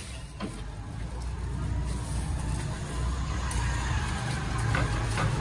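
Paper kites rustling as a hand leafs through a stack, over a steady low background rumble.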